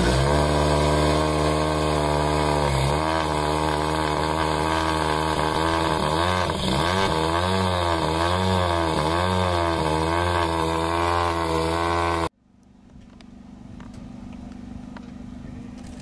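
A car engine running at a steady speed, then revved up and down over and over in a slow rhythm. The engine sound cuts off abruptly about twelve seconds in, leaving a much quieter steady low hum.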